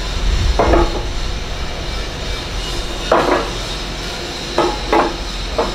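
Cast iron grating covers clanking as they are handled on a stack: about five metallic knocks with a short ring, scattered through, over a steady low factory hum.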